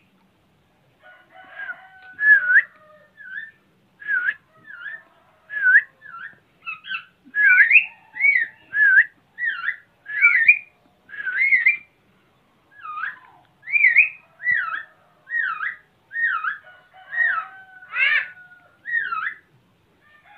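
Talking starling (jalak) whistling a long run of short, swooping notes, roughly one or two a second, with a brief pause about twelve seconds in.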